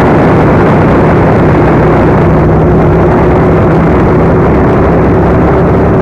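Loud, steady wind rush over a helmet-mounted microphone on a moving motorcycle, with the motorcycle engine's steady hum underneath.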